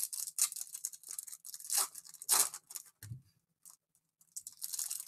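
A Topps Finest Bundesliga trading-card pack wrapper being torn open by hand: a run of short, irregular tearing and crinkling sounds, loudest about two seconds in.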